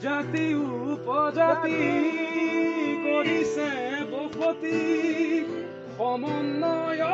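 A man singing with acoustic guitar accompaniment, his voice sliding and bending between notes over held low chords.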